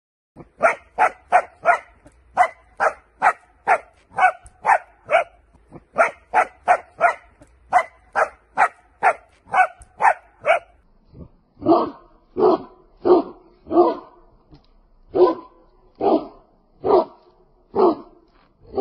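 A young dog barking repeatedly on command for a toy it may not touch. The barks come in quick runs at first, then, about halfway through, slow to deeper single barks at a steady pace.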